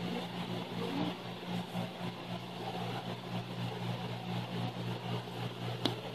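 Steady mechanical hum with a low droning tone and an even hiss, with a faint click near the end.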